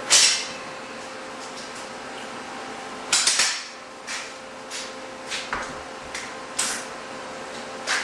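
Scattered sharp metal clanks and knocks from steel parts and tools being handled and struck. The loudest come at the start, in a quick cluster about three seconds in, and again near the end.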